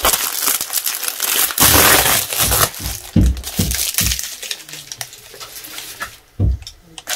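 Plastic bubble mailer crinkling and rustling as it is handled, loudest about two seconds in, with several dull knocks in the middle and one more near the end.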